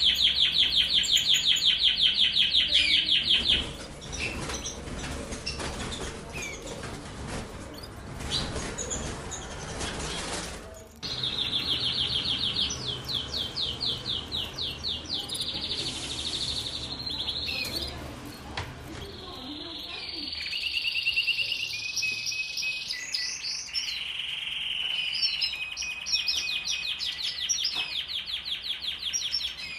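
Canary singing in a cage: fast rolling trills and short held notes, the male's courtship song used to bring hens into breeding condition. The song breaks off about four seconds in for several seconds of rustling noise, then starts again and runs on.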